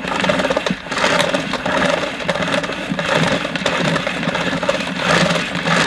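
Thick power cable being pulled out of a Numatic Henry Hound vacuum cleaner: the cord slides out through the cable outlet as the reel inside turns, a steady mechanical rubbing and rattling sound.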